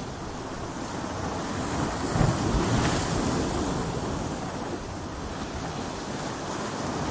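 Ocean waves breaking on a beach: a wave builds and crashes about two seconds in with a heavy low thump, then washes out as the next one starts to build near the end. Wind buffeting the microphone underneath.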